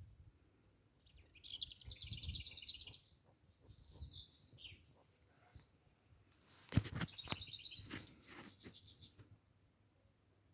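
Birds chirping in three bursts of quick repeated notes, with a sharp knock a little before the third burst.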